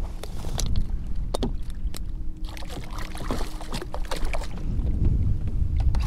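Wind rumbling on the microphone aboard a fishing kayak, with scattered sharp knocks and clicks from handling a freshly caught speckled trout, and a noisier stretch of hiss about midway.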